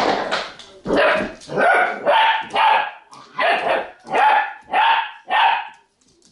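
A dog barking: a run of about nine short barks at an even pace, roughly two a second.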